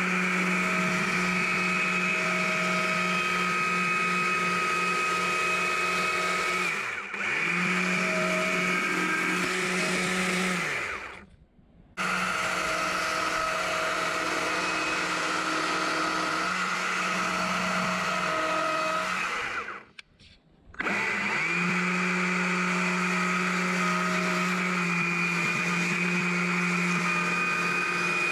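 Stihl MSA 200 battery chainsaw with narrow .043-gauge chain making plunge cuts into a small log: a steady electric whine that dips once, then twice stops for about a second and spins back up.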